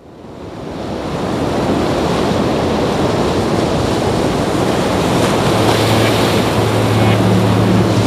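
Sea surf rushing steadily, with wind on the microphone, fading in from silence over the first second or so. A low steady hum joins about two-thirds of the way through.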